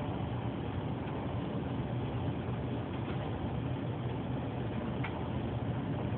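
Steady running noise of a Minuetto multiple-unit train heard inside its driver's cab: a low hum with a few faint ticks.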